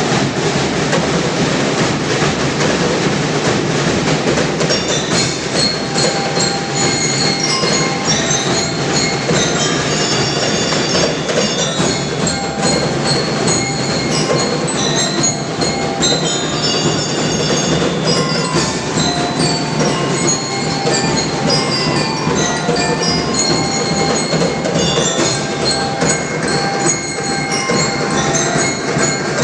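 A school drum and lyre corps playing: a dense, steady beat of marching drums, with bell lyres ringing out a high melody from about five seconds in.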